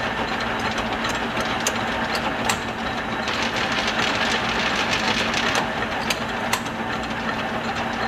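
Swift 12V6 HD gap-bed lathe running under power, its gear train giving a steady mechanical whir with a constant hum and a few sharp clicks, with the power feed driving the compound slide.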